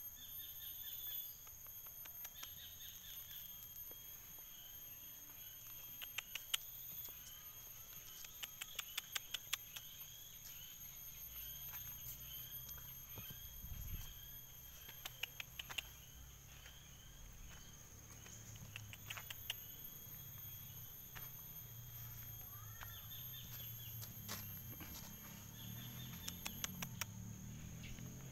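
A steady chorus of insects such as crickets or cicadas, with a few short chirps over it. Several brief runs of rapid sharp clicks come through, and a faint low rumble builds in the second half.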